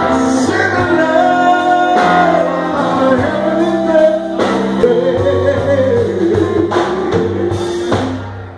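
Live blues band playing electric guitars, bass and drum kit, with a sung lead through the PA; the song winds down and stops just before the end.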